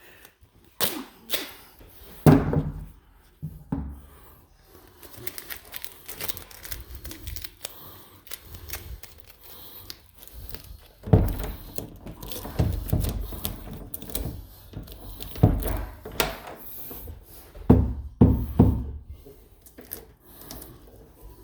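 Irregular knocks, clicks and rustling from hand work during carpet-removal prep, with a few louder clusters of thuds.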